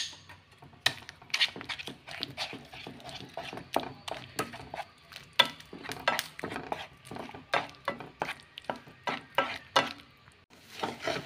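Spoon stirring and scraping in a pan of semolina and rice flour cooking in water as it thickens, with irregular clicks and knocks of the spoon against the pan several times a second.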